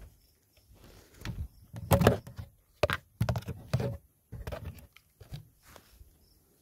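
Footsteps of a person walking across a walkway and gravel while carrying a phone, with handling bumps. The thumps and scuffs come irregularly, are loudest about two seconds in, and fade out near the end.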